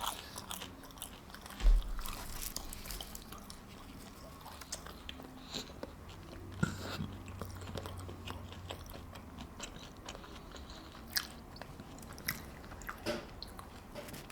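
Close-miked chewing and biting of fast food, with wet mouth sounds and scattered crunchy clicks. A low thump about two seconds in is the loudest sound.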